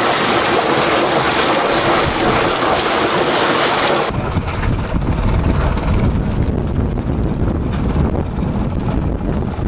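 Sea water rushing past a sailboat's hull in rough, choppy water, a loud steady hiss. About four seconds in it cuts abruptly to a low rumble of wind buffeting the microphone.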